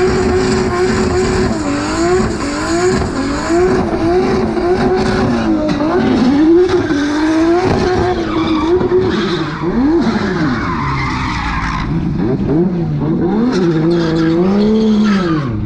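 Drift car's turbocharged Nissan RB25DET straight-six held at high revs in a burnout, the revs bouncing up and down again and again over the hiss and squeal of spinning tyres. Near the end the revs fall away.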